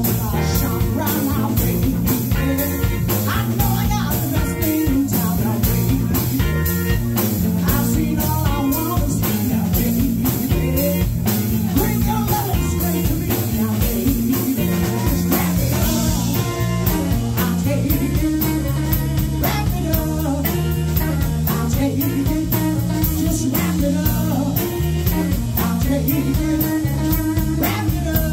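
Live band playing: a woman singing lead over electric guitar, electric bass and a drum kit keeping a steady beat.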